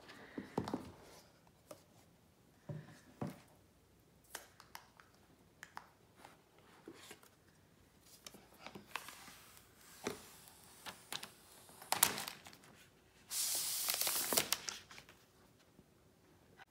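Unboxing an Apple iPad Air: the cardboard retail box and its paper packaging handled and lifted, with scattered soft knocks and crinkles and a longer tearing, crinkling rustle of about a second and a half near the end.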